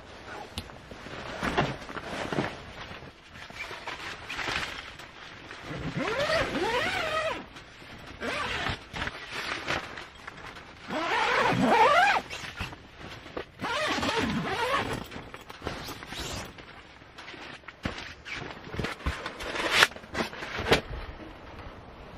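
Gear and clothing being handled in a tent: fabric rustling and scraping in repeated bursts of a second or two, with a sharp click a couple of seconds before the end.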